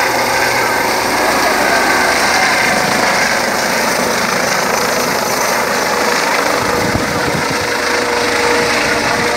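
Eurocopter EC135 twin-turbine helicopter taking off and climbing away: a loud, steady turbine whine and rotor noise.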